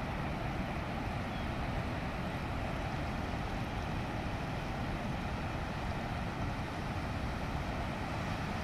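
Ocean surf breaking on a rocky beach: a steady, deep, even rush with no single wave standing out.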